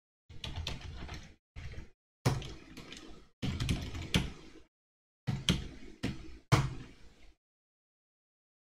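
Computer keyboard typing: several short runs of sharp keystroke clicks, broken by silent pauses.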